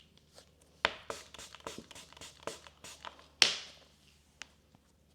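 Cloud slime being kneaded and stretched by hand as freshly added activator is worked in: a quick run of sticky crackles and snaps, the loudest about three and a half seconds in, then only a few faint ticks.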